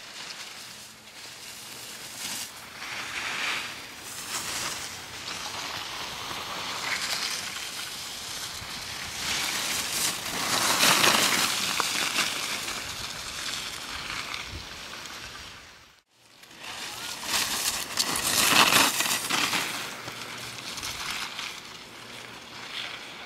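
Skis carving and scraping on hard-packed snow through giant slalom turns. The hiss swells and fades, loudest about eleven seconds in and again near nineteen seconds, with a sudden short break about sixteen seconds in.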